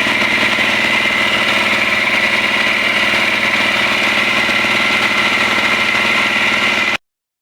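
Yanmar C220 marine air compressor running steadily, a constant mechanical drone with a strong high hum; it cuts off abruptly near the end.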